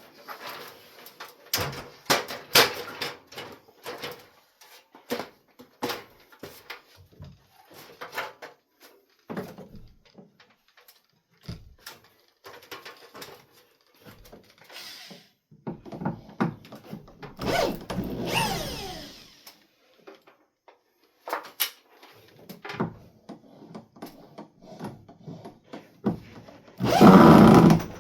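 Scattered knocks and clicks of handling wood and hardware, then a power drill running twice: once for a few seconds past the middle and once loudly near the end, its motor whining down in pitch each time it is let off.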